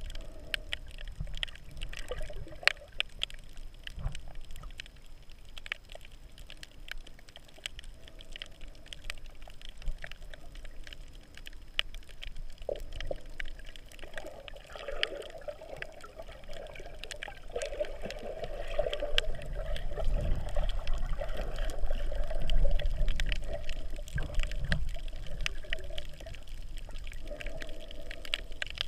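Muffled underwater water noise heard through a GoPro's waterproof housing as it moves over a rocky seabed: sloshing and gurgling with scattered sharp clicks. A low rumble grows louder in the later part.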